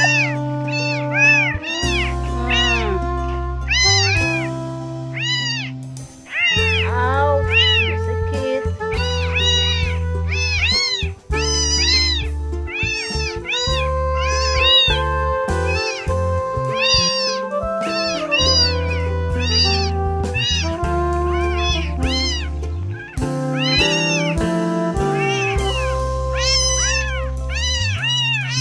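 Young calico kittens meowing over and over in short, high calls that rise and fall, over background music with sustained notes and a steady bass.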